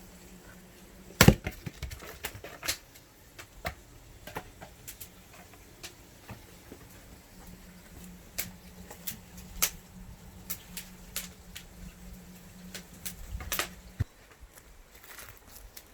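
Firewood being split: one heavy chop about a second in, followed by a string of lighter wooden knocks and clatters as split pieces are handled.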